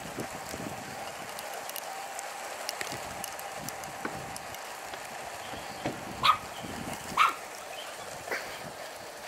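A dog barking: two loud single barks about a second apart past the middle, then a fainter third bark, over steady background noise.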